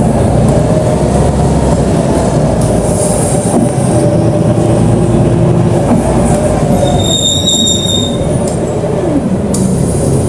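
BonLuck DD6181S32 articulated bus running: a steady low drivetrain rumble with whining tones that glide up and down, and a brief high squeal about seven seconds in.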